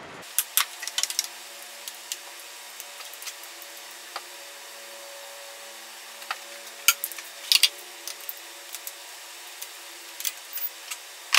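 Scattered clicks and metal clinks of a ratchet and socket working loose a starter mounting bolt, coming in short clusters, over a faint steady hum.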